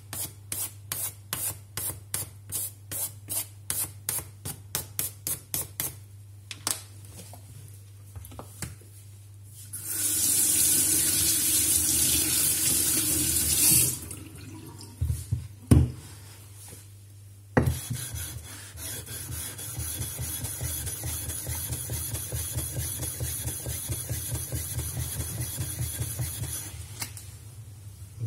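Ceramic whetstone rubbed back and forth on a Maffalo diamond lapping plate in quick strokes, about three a second, to flatten it. In the middle a tap runs for a few seconds to rinse the stone, followed by a few knocks as it is handled. Then steady, rapid rubbing resumes.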